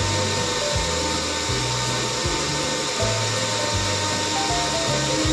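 Countertop blender motor running steadily on medium speed, puréeing the sauce ingredients into a thin liquid. Background music with a repeating bass line plays over it.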